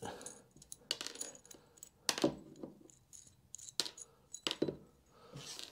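Small metal parts being handled: the WorkBee height reference plate and its bolts, giving a handful of light, irregular clicks and clinks.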